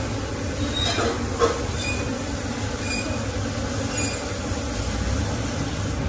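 Steady low rumble with the hum of Asian honey bees (Apis cerana) flying around a comb frame lifted from the hive, and two light knocks about a second in.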